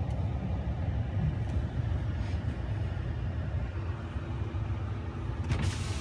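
Pickup truck engine idling, heard from inside the cab as a steady low rumble. A short rise of hissing noise comes in near the end.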